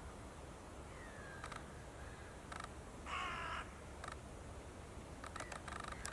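Male bluethroat singing: scattered clicking notes, a short falling whistle about a second in, and a loud harsh, buzzy note just past three seconds, over a low wind rumble.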